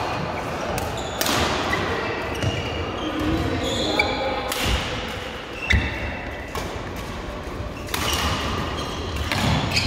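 Badminton rally in a large echoing sports hall: several sharp racket-on-shuttlecock hits a second or more apart, with shoe squeaks on the court floor and background chatter from people on other courts.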